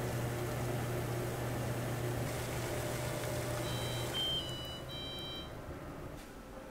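Water boiling in a stainless steel pan on an electric cooktop, with the cooktop's steady hum under the bubbling. About four seconds in, the cooktop gives a short electronic beep, then the hum and the boiling die away as it shuts off.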